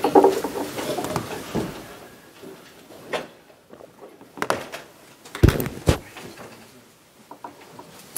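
Handling noise on a table: a few scattered knocks and clunks as objects are moved and set down, the loudest a pair of low thumps about five and a half to six seconds in.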